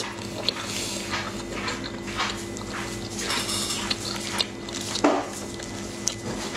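Close-up eating sounds: a person chewing soft food, with irregular wet squishes and small clicks as plastic-gloved hands lift pieces from a saucy plate. A low steady hum runs underneath.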